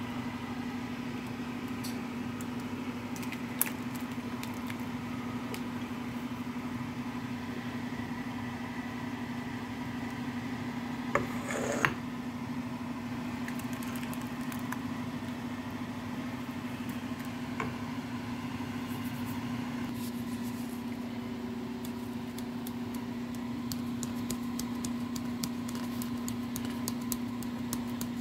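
A steady low mechanical hum, like a kitchen fan or appliance running, under the clink of a metal ladle against the soup pot and bowl. The loudest clinks come about three seconds in and again around eleven to twelve seconds. Near the end there is a quick run of faint ticks as seasoning goes onto the soup.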